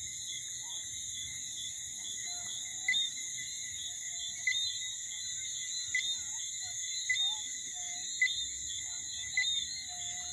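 Night insect chorus: a steady high-pitched trilling in several layers, with a short chirp repeating about every one to one and a half seconds.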